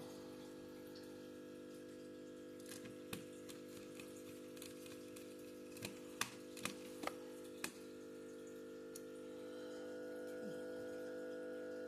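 Steady hum of an aquarium air pump and filter motor, with a handful of small sharp clicks and taps in the middle as screws and a screwdriver meet a laptop's plastic case.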